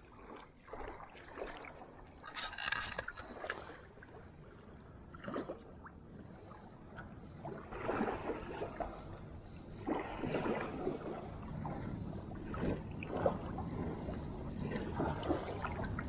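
Shallow water sloshing and trickling around hands holding a fish submerged for release, in irregular splashes that grow louder about halfway through.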